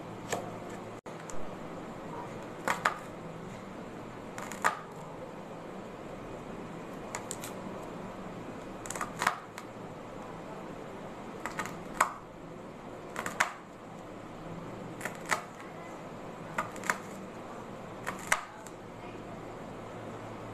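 Kitchen knife cutting carrots and green beans on a wooden chopping board: sharp knocks at irregular intervals, about one a second and often in pairs, over a steady background hum.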